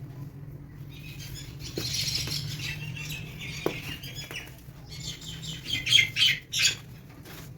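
Chunks of pressed baking soda crumbling and crunching, a gritty crackle with two sharper, louder crunches near the end, over a low steady hum.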